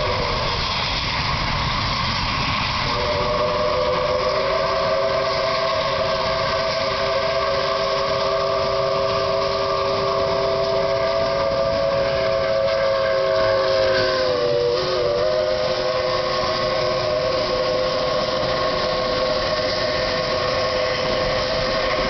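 Multi-chime steam locomotive whistle, on what is presumably Pere Marquette 1225, a 2-8-4 Berkshire, over the steady running noise of the train. A long chord breaks off briefly at the start, sounds again about three seconds in, and holds for a long time; the lowest note drops out and the chord wavers about two-thirds through, then it keeps blowing.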